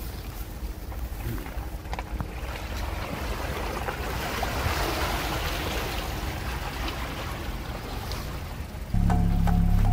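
Muddy water splashing and sloshing as a Mitsubishi Pajero iO's tyres push through a deep puddle, over a low rumble; the wash swells to its loudest about halfway and then eases. Music with a steady beat cuts in abruptly near the end.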